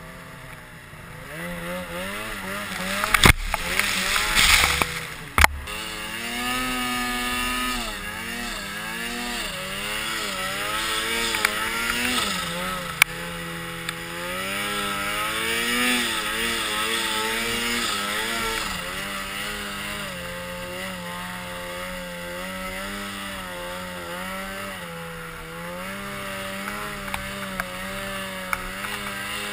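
Snowmobile engine revving up and down under load in deep powder, its pitch rising and falling the whole time. About three to five seconds in there are a few sharp knocks and a loud rushing burst.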